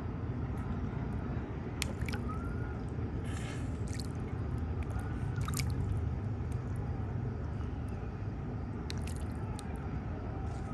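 Bluegill striking at food on the water surface: scattered sharp pops and small plops, with a short splash a little over three seconds in, over a steady low rumble.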